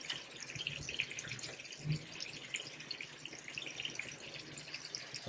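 Oil sizzling and crackling faintly in a hot frying pan, a steady patter of small pops. A brief low thump about two seconds in.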